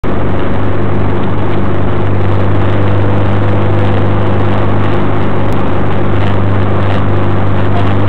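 Triumph Spitfire's four-cylinder engine and drivetrain running steadily at highway cruising speed: a loud, steady low hum with road noise.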